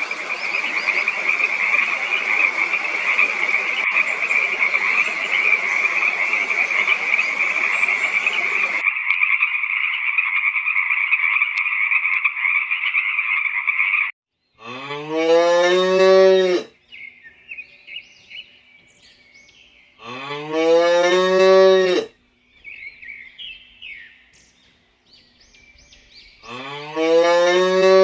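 A steady, dense chorus of animal calls that cuts off abruptly about nine seconds in, with a thinner band running on until about fourteen seconds. Then a cow moos three times, each moo about two seconds long and rising in pitch at the start.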